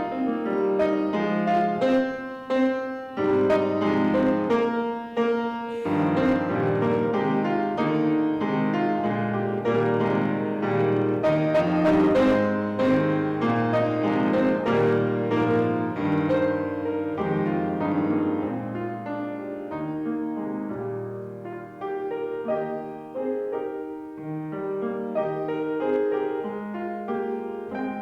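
Piano playing a flowing piece of notes and chords, busiest about halfway through and thinning out toward the end.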